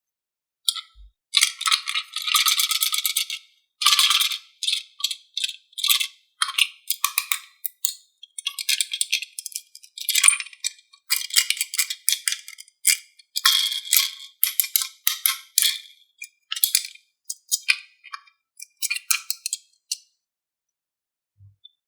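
Hard plastic toy pieces clattering and rattling as they are handled, in irregular short bursts and clicks with brief pauses between.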